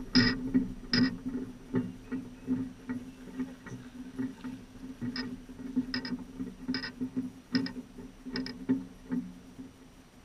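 Electronic carp bite alarm sounding a series of short beeps, evenly spaced at first, then faster and more irregular, the signal of a fish taking line. A steady low drone runs underneath.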